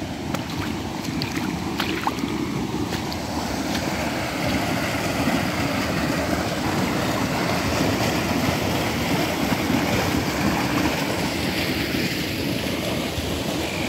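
Flash-flooded creek water rushing past, a loud steady rush, with a few light ticks in the first couple of seconds.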